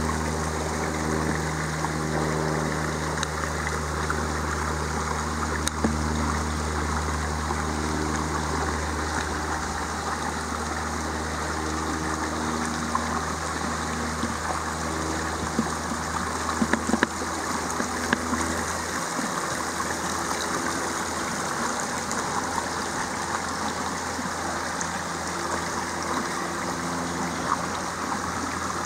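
Shallow creek water running and trickling over stones, a steady rush, with a low hum underneath that drops away about two-thirds of the way through and a few brief clicks.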